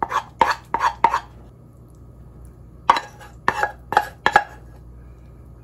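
A utensil knocking and scraping against a stainless steel pot as taco rice meat sauce is scooped out onto a plate: a few quick clanks, a pause of about a second and a half, then another run of about six.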